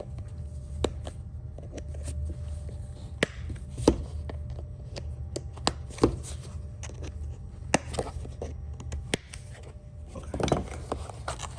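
Irregular sharp clicks and light knocks of small objects being handled and set down on a tabletop, over a steady low hum.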